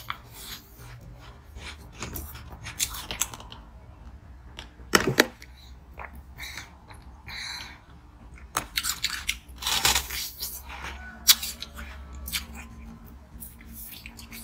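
Biting and chewing a thick moulded disc of brown flavoured ice: irregular sharp crunches and cracks between quieter chewing, the loudest bites about five seconds in and around ten seconds.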